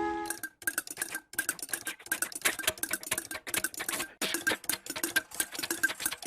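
Rapid, irregular clicking and tapping strikes, several a second, each with a faint ring. It is an old cartoon sound effect.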